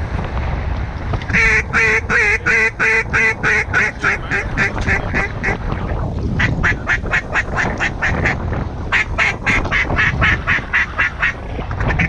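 Mallard duck call blown in three long runs of quick, evenly spaced quacks, about three a second, the first run fading as it goes. Wind rumbles on the microphone underneath.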